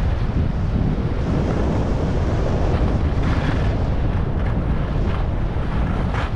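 Wind buffeting an action camera's microphone during a fast ski run, mixed with skis hissing and scraping over packed, groomed snow, with brief louder scrapes about halfway through and near the end.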